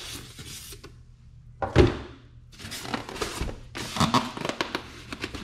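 Cardboard box and foam packing insert being handled as the tight-fitting foam block is pulled free: a single loud thump about two seconds in, then scraping and rubbing of foam against cardboard.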